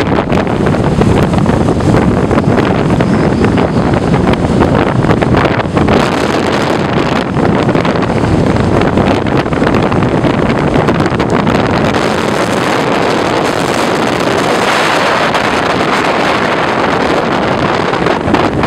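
Strong wind buffeting the microphone: loud, continuous rumble and hiss that rises and falls with the gusts.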